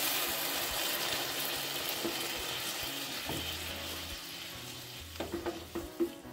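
Thin coconut milk poured into a hot pan of oil-fried onions and masala, sizzling and slowly dying down as the liquid cools the pan. A spatula knocks and scrapes a few times near the end while stirring it in.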